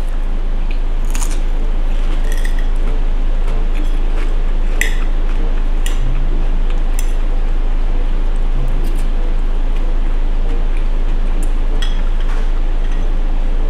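Cutlery clinking against a plate a few times during a meal, over a steady low hum.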